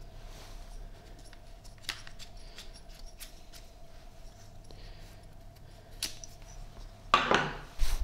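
Packaging and parts being handled during an unboxing: scattered small clicks and taps, then a louder rustling scrape about seven seconds in and a thump at the end. A faint steady hum runs underneath.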